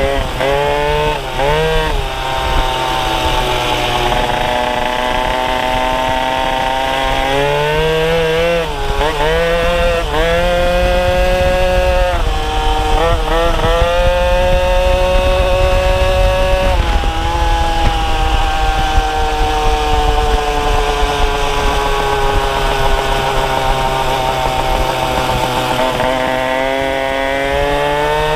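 Small two-stroke scooter engine running under way, its pitch climbing and falling with the throttle. It revs up sharply several times in the first half, then drops slowly over a long stretch before picking up again near the end.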